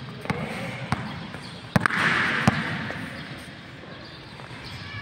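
A basketball dribbled on an indoor court floor: a handful of sharp bounces in the first two and a half seconds, then fewer as the player gathers the ball to shoot. A rush of noise about two seconds in.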